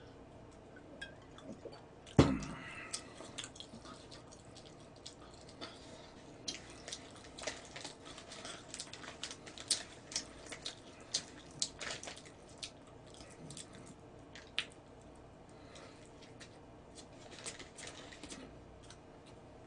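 Eating and table sounds at close range: a single sharp knock about two seconds in, then scattered crinkles and clicks as food is pulled apart by hand over a paper wrapper, with some chewing.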